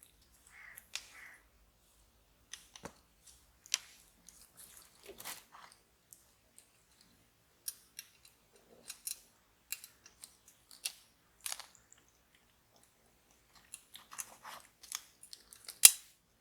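Scattered small clicks, taps and short scrapes of a scale model car's parts being handled, with one sharp click near the end.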